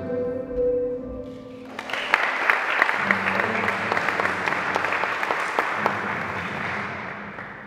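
The last held notes of the music, then about two seconds in, an audience breaks into applause, a dense clatter of clapping that holds steady and fades out near the end.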